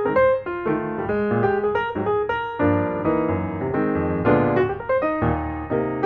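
Background piano music: a melody of quick single notes over sustained chords.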